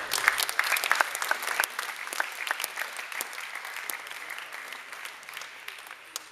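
Spectators' applause at the end of a table tennis rally: a dense patter of hand claps that begins sharply and thins out over several seconds.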